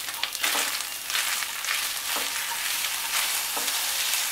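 Sliced ivy gourd (kundru) sizzling in hot mustard oil in a non-stick frying pan, stirred with a spatula in irregular strokes that rise over the steady sizzle.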